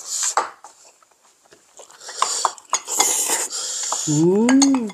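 Eating sounds at the table: a wooden spoon and chopsticks clicking against ceramic bowls, with slurping. Near the end comes a short hummed "mmm" that rises and then falls in pitch.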